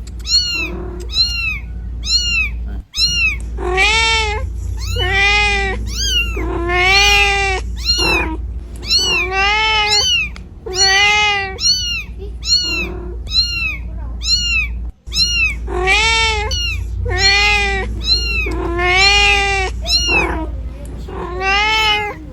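Domestic cat meowing over and over, short higher mews mixed with longer, louder drawn-out meows, each rising then falling in pitch. The calls are typical of a mother cat calling for her kittens. A steady low rumble runs underneath.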